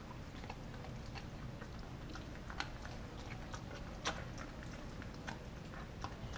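Dog chewing and gnawing on a frozen raw turkey steak, with irregular crunching clicks, the sharpest about two and a half and four seconds in.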